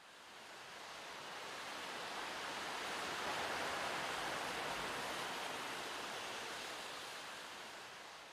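A steady rushing noise swells up over the first three seconds, holds, then slowly fades near the end.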